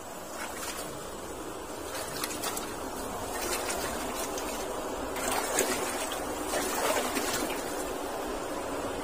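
Steady rush of flowing water from an irrigation channel, with scattered light clicks, growing somewhat louder after a few seconds.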